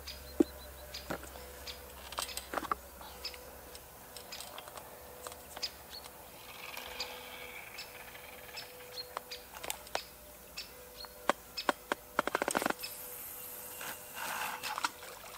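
Feeder rod being cast out, with a quick run of rapid ticks near the end as line runs off the spinning reel. Scattered small clicks of handled tackle and faint bird chirps around it.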